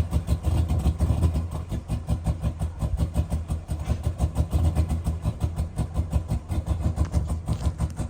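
Ram 1500's Hemi V8 engine idling with a regular pulsing exhaust beat, several pulses a second.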